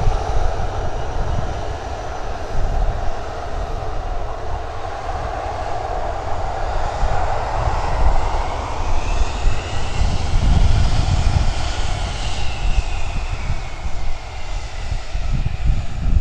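KC-135R Stratotanker's four CFM56 turbofans at high thrust during a takeoff roll: a steady loud jet noise with a deep rumble, and a whine that rises and then falls in pitch around the middle.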